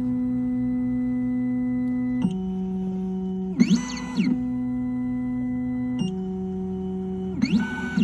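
Triton Plus key-cutting machine milling a genuine factory Hyundai key blade at slowed cutting speed: a steady motor tone that alternates between two pitches every couple of seconds, with short rising-and-falling whines about three and a half seconds in and again near the end.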